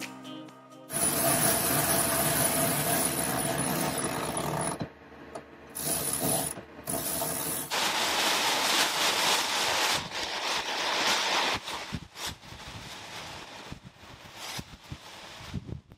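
Electric anchor windlass hauling in chain in two runs, with a steady high whine over the rattle. Then a spinnaker being hoisted by hand: the line running through its blocks and the sail flapping, with scattered knocks.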